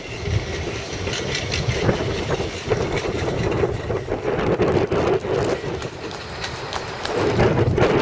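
Bombardier Flexity 2 light-rail tram passing close by, its wheels rumbling steadily along the rails with many scattered clicks.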